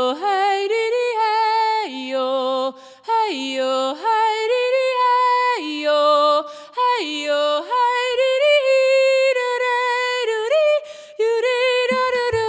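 Unaccompanied female jazz voice singing a free, improvised line of held notes joined by slides, with short breaths between phrases.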